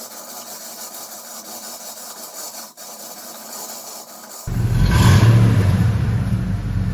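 A low engine rumble starts suddenly about four and a half seconds in and keeps running loudly, after a few seconds of faint hiss with a single click.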